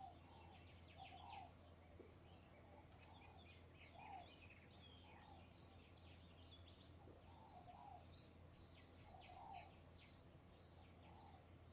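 Several birds calling in open countryside: a lower two-note call repeats roughly once a second, while many short, high chirps and trills overlap above it. A faint, steady low background of light breeze runs underneath.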